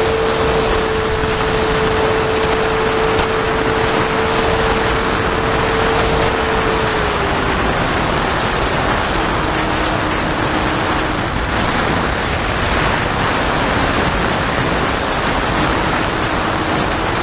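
Steady rushing hiss of wind on the microphone, with the thin, steady whine of an electric RC plane's motor and propeller high overhead. The whine drops in pitch in steps about seven and nine seconds in.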